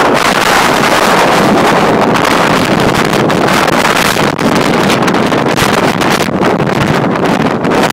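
Gale-force storm wind buffeting the microphone, a loud continuous rushing roar that surges and dips with the gusts.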